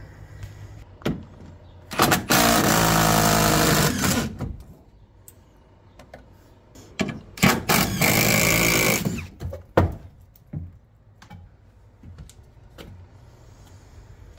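Power drill running in two spurts of about two seconds each, backing out the screws that hold up a porch, with clicks and knocks between and after.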